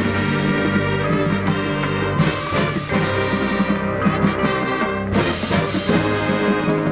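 High school marching band coming in loud all at once as the show opens: the brass section plays sustained full chords over low bass notes, with percussion strikes now and then.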